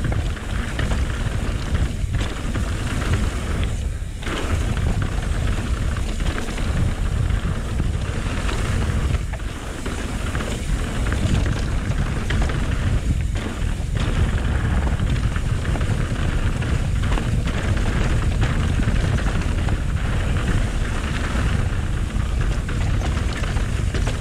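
Wind buffeting the microphone in a heavy low rumble, over the rattle and rolling of a mountain bike ridden fast down a rough dirt trail.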